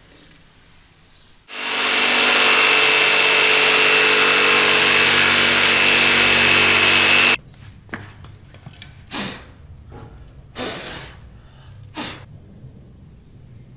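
Bosch jigsaw cutting through a wooden board: it starts about a second and a half in, runs steadily with a high whine for about six seconds, and stops abruptly. Three brief noises follow.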